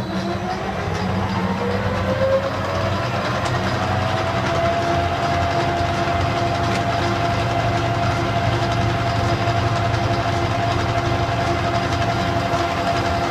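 Metal lathe running through a facing cut, a carbide-insert facing tool taking about 30 thousandths off the face at a slowed feed rate. A machine whine rises in pitch over the first four seconds or so, then holds steady over a low hum.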